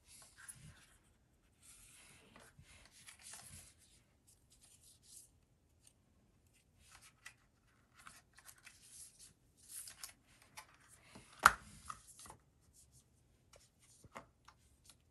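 Cardboard packaging and a paper manual handled on a wooden table: scattered rustling and sliding with soft taps, and one sharper knock about three-quarters of the way through.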